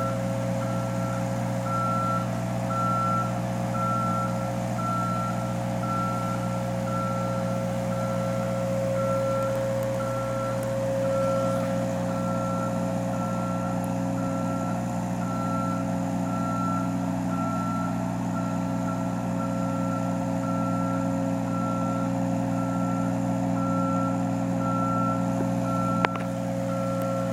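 Reversing alarm on construction machinery beeping steadily, about once a second, over the steady running of its diesel engine. A single sharp click near the end.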